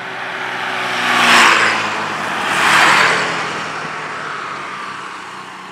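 Two motor scooters passing close by, one after the other about a second and a half apart. Each one's engine and tyre noise swells and fades, and the engine note drops in pitch as the first goes by.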